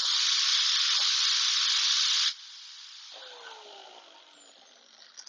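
Grinder sharpening the tip of a steel scriber made from a ground-down Torx bit: a loud grinding hiss that stops abruptly a little over two seconds in, then the motor winding down with a slowly falling whine.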